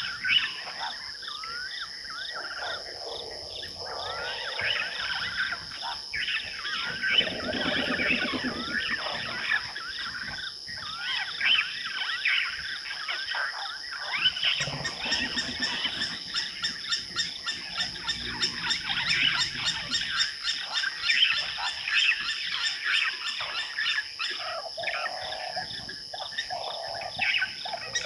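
Night chorus of frogs and insects: many overlapping chirping calls rising and falling in pitch over a steady high-pitched insect drone, with a few lower calls mixed in.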